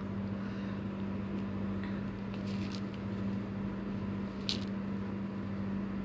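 Faint crackling and rustling of loose seed in a plastic cup as a peach-faced lovebird digs and flutters in it, over a steady low hum.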